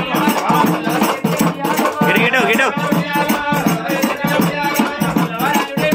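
A Telugu folk devotional song to Mallanna (uyyala paata) sung over a double-headed drum beaten with a stick and a steady rattling percussion, at about three beats a second.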